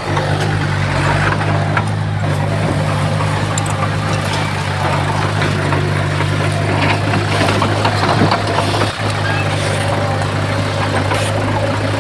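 Heavy diesel engine of earthmoving equipment running steadily with a low, constant hum.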